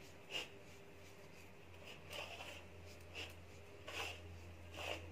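Hands rubbing and squeezing dry flattened rice (poha) with grated coconut in a metal plate: faint, scratchy rustling, with a few short soft scrapes spaced through it.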